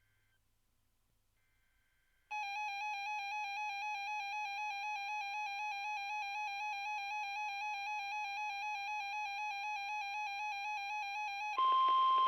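Weather radio receiver sounding its electronic alert alarm, a warbling tone that starts suddenly after a couple of seconds of near silence and runs about nine seconds. Near the end it switches to the broadcast's louder steady 1050 Hz warning alert tone over static hiss, the signal that a weather warning or watch message follows.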